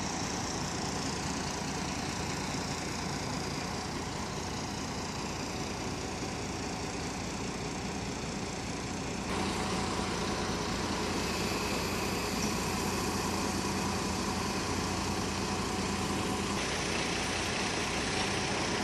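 Diesel engine of a container-handler forklift running steadily, growing louder about nine seconds in.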